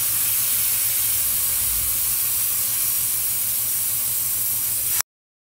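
Air hissing out of a car tyre's valve stem as the valve core is held down with a small screw, deflating the tyre. A steady hiss that cuts off suddenly near the end.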